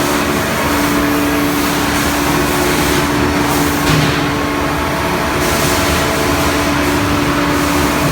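Sawmill machinery running steadily: a loud, constant mechanical drone with a steady hum over broad noise.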